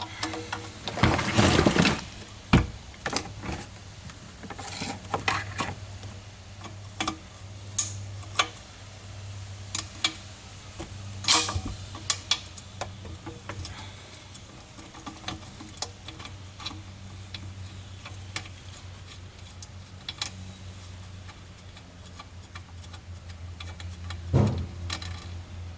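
Scattered metallic clicks, clinks and knocks of hand tools and small parts being handled while dismantling Mercedes M-100 engine intake components, with a louder clatter about a second in and a knock near the end. A steady low hum runs underneath.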